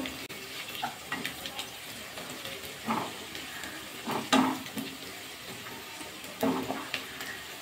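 Sliced onions frying in mustard oil in a kadai, a steady sizzle with scattered crackles, as a wooden spatula stirs them. Three louder strokes of the spatula against the pan come about three, four and six and a half seconds in.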